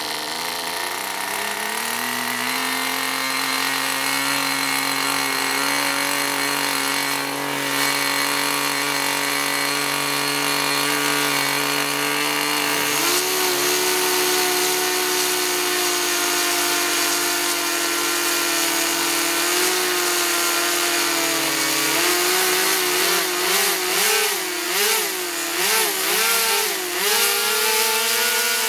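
Twin small model engines, each spinning a tractor propeller, running together during running in. The pitch climbs as they settle, steps up about thirteen seconds in, then rises and falls several times as the throttle is blipped, before holding at a higher speed; the two engines answer the matched throttle differently.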